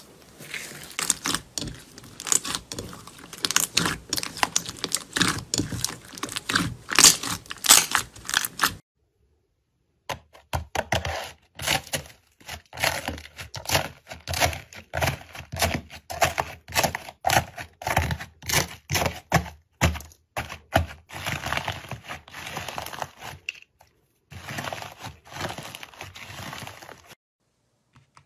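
Slime with a dried, crisp crust crackling and crunching as hands press, squeeze and break it. Dense runs of small cracks, with two short silent breaks.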